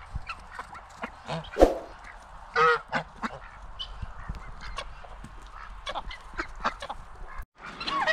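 A flock of domestic geese and ducks feeding, with scattered short honks and quacks; the loudest honks come in the first three seconds.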